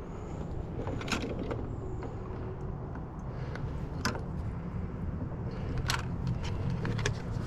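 A few scattered light clicks and knocks of hand-handled parts or tools, five or so spread through, over a steady low rumble.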